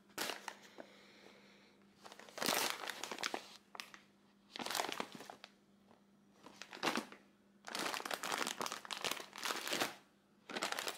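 Plastic snack packets and grocery boxes crinkling and rustling as they are picked up and handled, in several bursts of one to two seconds with short pauses between.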